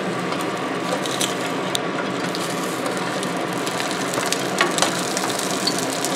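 Olive oil sizzling and crackling steadily in a nonstick frying pan as frozen pierogi are laid in one by one, with a few light clicks from silicone-tipped tongs.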